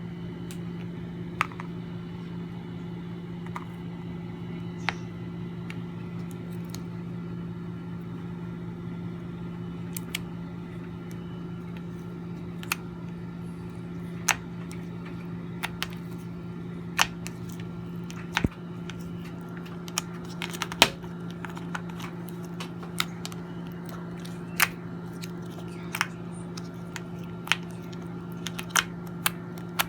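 Slime with pearl beads mixed in being pressed and played with, giving scattered sharp clicks and pops at an irregular pace, over a steady low hum.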